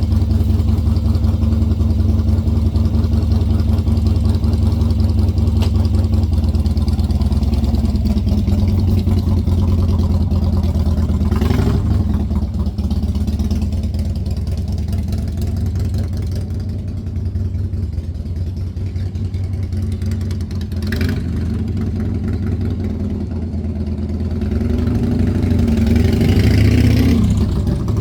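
1988 Harley-Davidson FXR's V-twin engine idling steadily, blipped up briefly about a third of the way in and again about two-thirds in, then revved up for a couple of seconds near the end.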